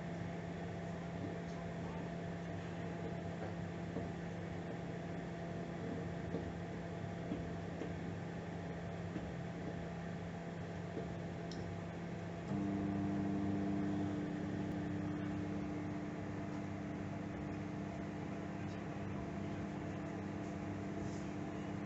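Microwave oven running at medium power, a steady hum with its fan and turntable. About halfway through, the hum steps up louder and deeper as the magnetron cycles back on, the on-off duty cycle of medium-power heating.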